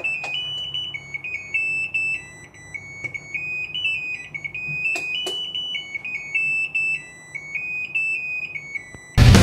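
Hitachi BeaT Wash washing machine's electronic beeper playing its end-of-cycle melody, a tune of pure beeping notes stepping up and down. Two or three short clicks sound about five seconds in.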